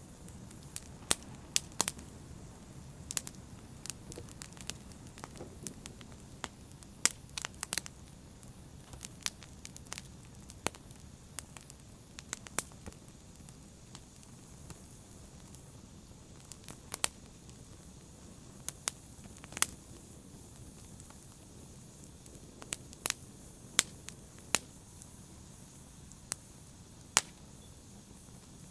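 Wood fire burning in a fireplace, a low steady rush of flame with sharp crackles and pops at irregular intervals.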